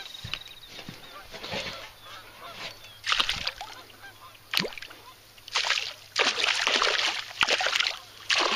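Hooked largemouth bass thrashing at the surface, a run of short splashes that crowd together in the second half, one longer spell of splashing among them.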